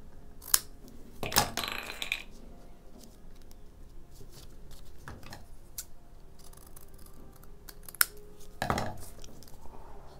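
Small craft scissors snipping through painted watercolour paper in a few separate cuts, with sharp blade clicks and the paper rustling as it is handled.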